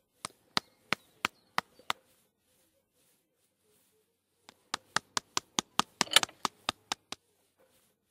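Sharp, evenly spaced taps or knocks: six at about three a second, then after a pause a longer, faster run of about a dozen, loudest where several come close together a little past the middle.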